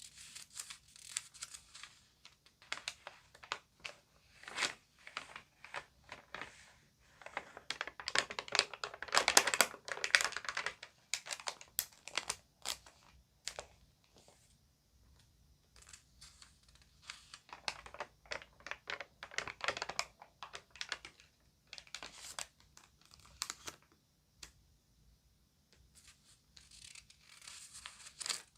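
Glossy magazine pages being turned and crinkled by hand: irregular crackles and rustles in clusters, loudest and densest from about eight to eleven seconds in, with short quieter pauses between.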